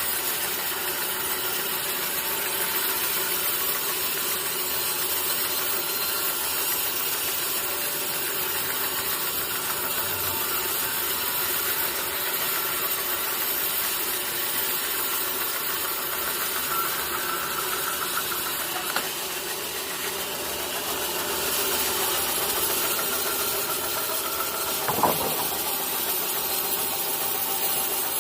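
Sawmill machinery running steadily at idle between cuts, with one sharp knock about three-quarters of the way through.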